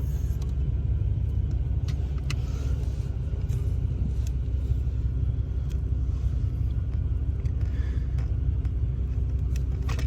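Lexus GX 470's 4.7-litre V8 idling with a steady low rumble, with a few faint short creaks as the brake pedal is pressed and released. This is the brake-pedal squeak the owner is trying to diagnose.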